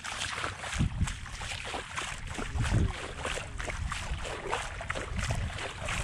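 Outdoor wind buffeting the microphone in uneven low gusts, mixed with irregular crackling rustles.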